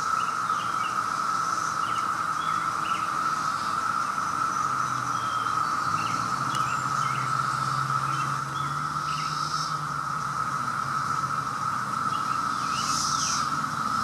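Chorus of 17-year periodical cicadas: a steady, unbroken drone, with short bird chirps scattered over it.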